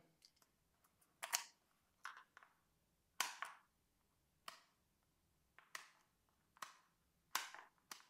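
Light, sharp clicks and taps of an ATV ignition key switch and its key being handled in a plastic dash panel: about nine separate clicks at irregular intervals.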